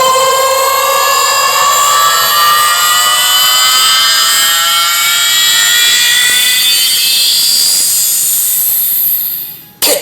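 A large sound system playing a slowly rising electronic tone with many overtones. It climbs steadily for about nine seconds, then fades out just before the end.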